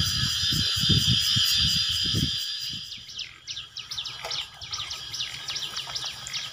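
Insects keep up a steady high drone that fades about three seconds in, with a run of low thuds in the first two seconds; after that, birds chirp in quick short notes.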